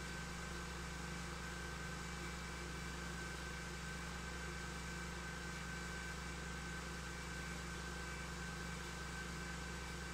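Steady hum and hiss of a 16mm film projector playing a blank stretch of soundtrack after the end music, with a faint steady high tone.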